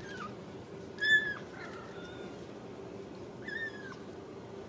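Young Ragdoll kitten mewing, calling for its mother: three or four short, high-pitched mews, the loudest about a second in and another near the end, each dropping in pitch as it ends. A faint steady hum runs underneath.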